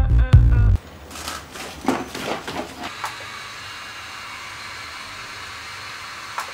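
Music cuts off under a second in; then a few soft handling knocks and rustles, and from about three seconds a handheld pulsed-light hair-removal device hums steadily with a faint hiss.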